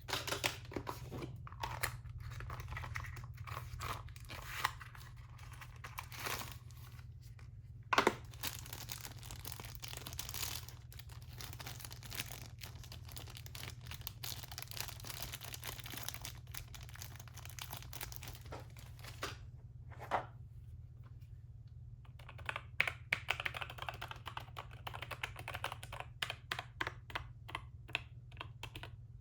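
Unboxing handling sounds: packaging crinkling and tearing, with a denser stretch in the middle, and quick runs of key clicks from a mechanical keyboard, busiest near the start and again near the end, over a steady low hum.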